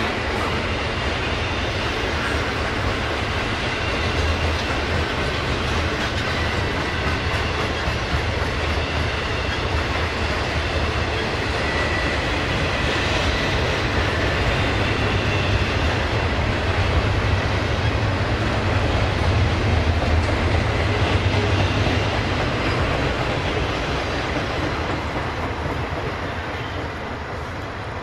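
Double-stack intermodal freight cars rolling past, their steel wheels rumbling steadily on the rails. The sound fades near the end as the tail of the train draws away.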